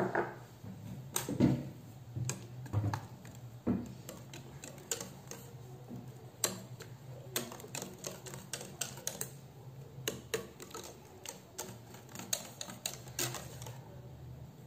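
Wire whisk clicking against a metal saucepan in quick, irregular strokes as butter is whisked into thick pastry cream, after a few dull knocks in the first four seconds.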